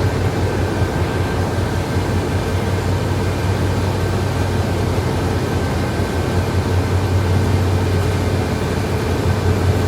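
Steady drone of a motor coach in motion heard from inside the cabin: engine and road noise with a low hum and fainter steady tones above it.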